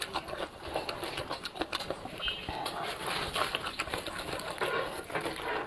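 Eating sounds: irregular small clicks and smacks of chewing and mouth noises, with no speech.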